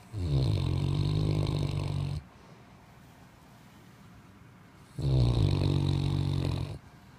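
A middle-aged man snoring: two long, low snores of about two seconds each, about three seconds apart.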